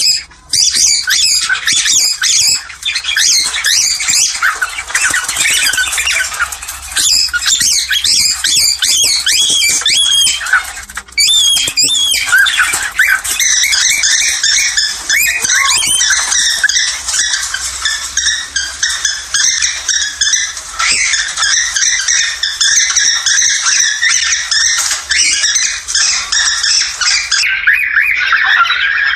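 Several cockatiels calling and chattering continuously, a dense stream of overlapping squawks and chirps: the birds' breeding calls. The stream breaks off briefly just after the start and again about eleven seconds in.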